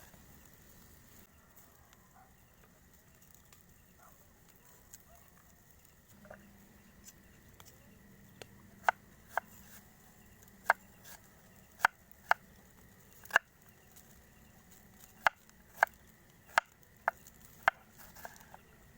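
Campfire wood crackling, with a dozen or so sharp, irregular pops, most of them in the second half.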